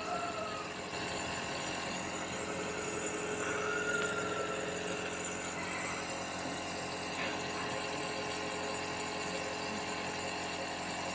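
Compressor nebulizer's small pump motor running with a steady, even hum.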